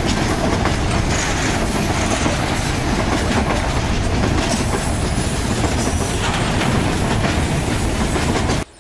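Freight wagons rolling past close by: a steady rumble and clatter of steel wheels on the rails, which cuts off abruptly near the end.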